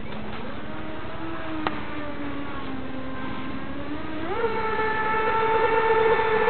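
Electric RC model offshore powerboat's motor and propeller whining as the boat runs across the water. The whine is steady and low at first, then about four seconds in rises quickly to a higher pitch and holds there, louder, as the boat speeds up.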